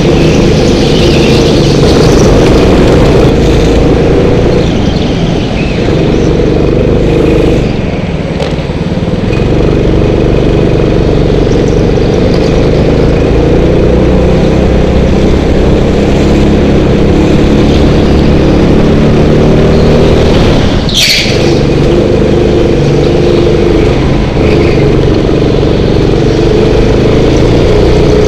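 Go-kart engine heard from on board, running hard and rising and falling in pitch as it accelerates and eases off through the corners. A brief high squeal about 21 seconds in.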